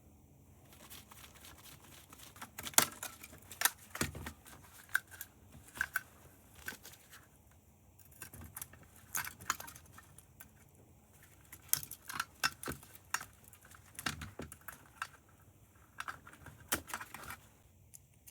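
Irregular clicks, taps and small rattles of metal and plastic parts being handled and pried apart while a security camera is disassembled by hand.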